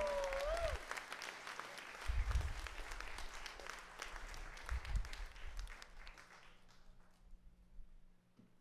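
Audience applauding at the end of a song, thinning out over about seven seconds. A held tone from the band's music dies away in the first second, and a couple of low thumps sound during the clapping.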